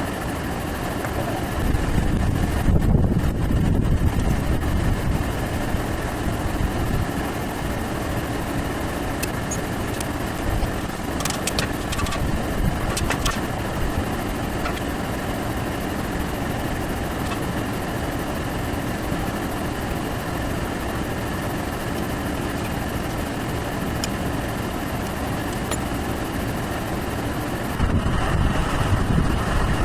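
Steady mechanical running noise with a hum, swelling into a louder low rumble twice, a couple of seconds in and again near the end. A few light clicks sound around the middle.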